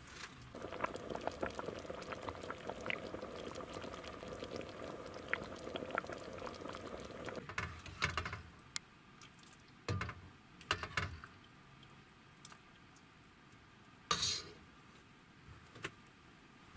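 Buckwheat porridge bubbling and popping in an enamel pot on a portable gas stove, until the bubbling stops about seven seconds in. After that a metal spoon knocks and clinks against the pot and a metal bowl several times as the porridge is dished out.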